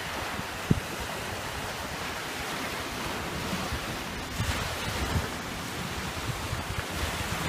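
Small waves washing onto a sandy shore, a steady hiss of surf, with wind buffeting the microphone in brief low thumps about a second in and again around four to five seconds in.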